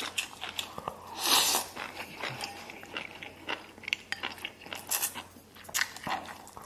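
Close-up chewing and slurping of a mouthful of spicy mao cai, with many wet smacking clicks and a louder slurp about a second in.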